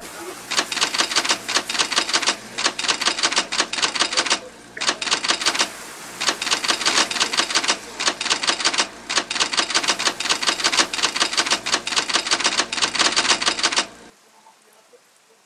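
Typewriter sound effect: rapid key strikes clacking in runs broken by short pauses, stopping abruptly near the end.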